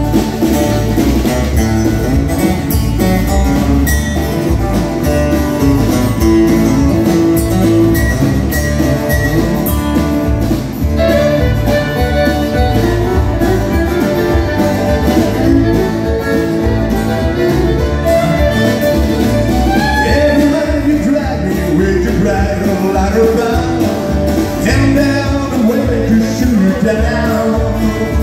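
Live country music played on strummed acoustic guitars, with a man singing.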